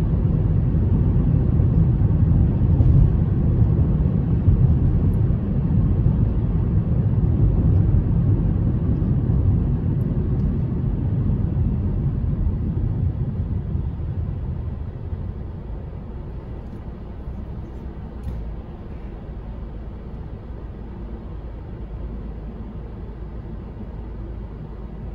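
Road and engine noise inside a moving car: a steady low rumble. From about the middle it fades over several seconds as the car slows to a stop at a red light, leaving a quieter idling hum.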